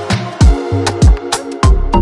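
Background music with a steady beat: deep kick-drum hits that drop in pitch, sharp percussion between them, and held keyboard-like tones.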